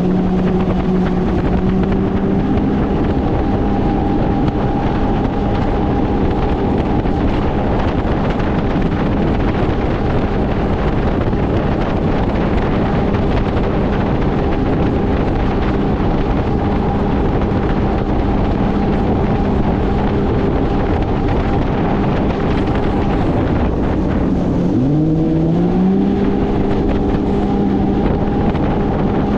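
Jet sled boat's engine running steadily under way over the rush of water and wind on the microphone, its note dipping briefly and climbing back up near the end. It is on a test run after repairs, running normally.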